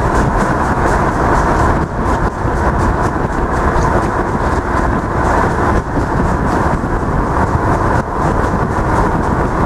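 Loud, steady roar of a moving vehicle's road and wind noise, rumbling on the microphone, with a few brief dips; no separate hoofbeats stand out.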